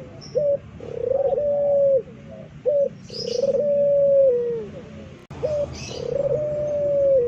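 Puter pelung, a ringneck dove bred for its song, cooing loudly. There are three phrases about two and a half seconds apart, each a short clipped note followed by a long drawn-out coo that slides down at its end. Faint chirps of a small bird come in about three seconds in.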